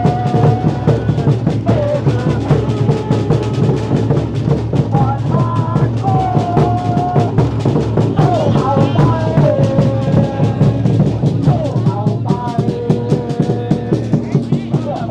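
Football supporters' section singing a chant together over a steady pounding drumbeat, with held, sliding sung notes.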